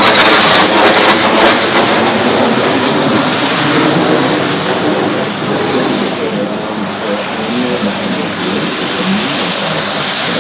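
Military aircraft flying past, its engine noise loud at first and slowly fading away.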